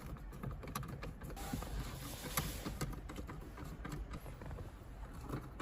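Small clicks, creaks and scrapes of metal brackets being screwed into a car dashboard, with a short rasp about halfway through.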